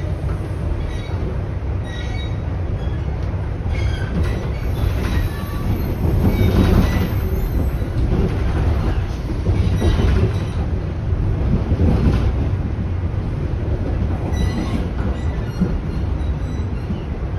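Toronto Rocket subway train running at speed, heard from inside the car: a steady low rail rumble with occasional clacks over rail joints and faint wheel squeal. It swells louder about six seconds in and again around ten to twelve seconds in.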